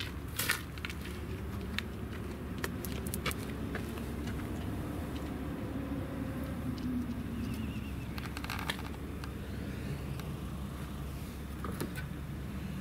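Steady low rumble of outdoor traffic, with scattered light clicks and clinks from the angler's tackle as he walks, the sharpest about half a second in.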